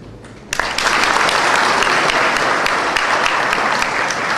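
Large audience applauding, breaking out suddenly about half a second in and continuing steadily.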